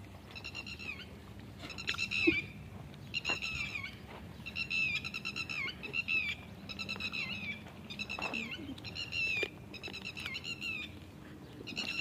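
Repeated short, high-pitched animal calls with a wavering, quavering tone, about one a second, with a few soft knocks between them.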